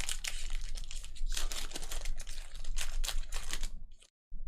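Rapid, irregular light clicks and rustling from glossy trading cards being flipped through and handled, over a low steady hum. The sound cuts out completely for a moment about four seconds in.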